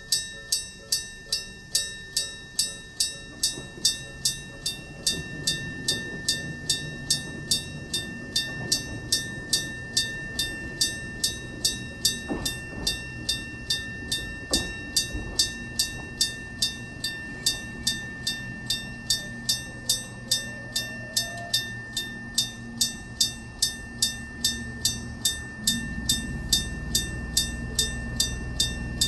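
Railway level-crossing warning bell of the old electromechanical striking-gong type, ringing steadily at about two strikes a second. A train's low rumble builds under it and grows louder near the end.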